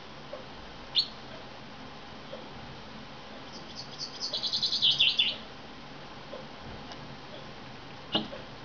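Chaffinch song: a quick run of notes falling in pitch and speeding up, after a single short call about a second in. Near the end there is one sharp knock.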